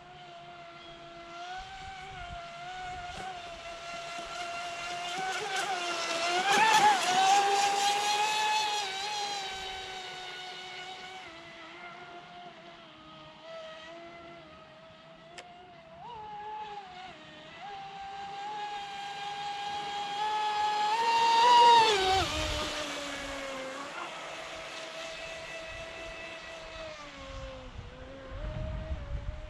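Pro Boat Impulse 32 radio-controlled deep-vee boat's electric motor whining at speed as the boat makes two fast passes. The whine swells about a quarter of the way in and again about three-quarters through, its pitch dropping each time the boat goes by.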